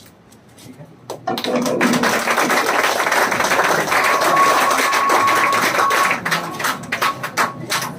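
Applause from a room of seated children: clapping breaks out about a second in, holds dense for several seconds, then thins to scattered claps near the end.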